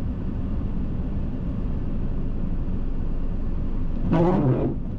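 Steady low rumble of a car, heard from inside the cabin, with a brief untranscribed voice about four seconds in.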